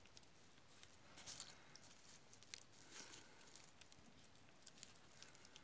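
Kitten eating wet cat food: faint, irregular small clicks and smacks of chewing and lapping.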